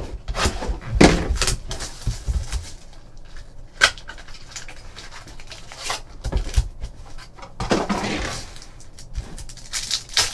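Hands handling and opening a box of trading-card packs: cardboard and foil packs scraping, rustling and knocking in irregular bursts, with a sharp click about four seconds in. A pack wrapper is torn open near the end.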